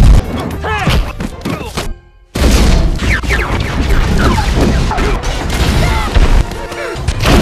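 Action-film soundtrack mix of music with booms, crashes and heavy impacts. It cuts out briefly about two seconds in, then comes back with a loud low hit.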